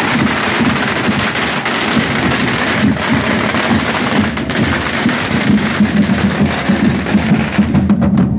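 Marching street drum band playing a steady beat, under a loud steady hiss that stops near the end.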